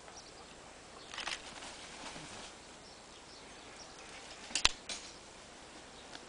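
Wire-mesh cage trap being handled with a badger inside: a scraping rustle about a second in, then a sharp double metal clank about four and a half seconds in.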